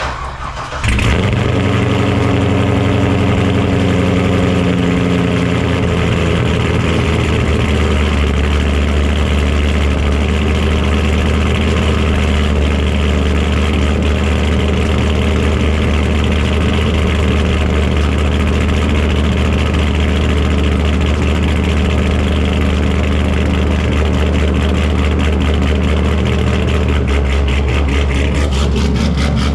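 C5 Corvette Z06's V8 engine running steadily with a deep, even hum, coming in about a second in.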